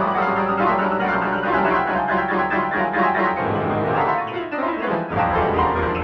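MIDI piano playback of a track run through an automatic audio-to-MIDI converter: a dense, cluttered cluster of many notes at once rather than a clean melody. A run of low notes falls away between about three and a half and five seconds, then the crowded chording starts up again.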